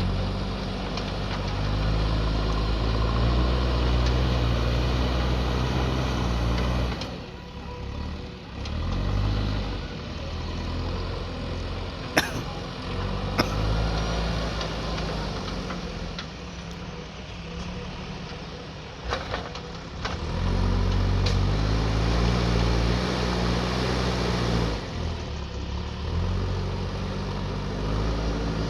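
JCB backhoe loader's diesel engine working, its revs rising under load and dropping back to a lower run between pushes, with a few sharp metal clanks about halfway through.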